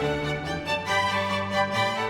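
Background music: orchestral strings led by violin, with sustained notes that change every half second or so.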